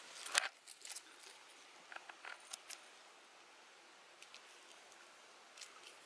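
Hazel leaves, twigs and nut husks rustling and crackling as hazelnuts are picked from the bush by hand. The loudest is a sharp crackle about half a second in, followed by a few faint rustles and clicks.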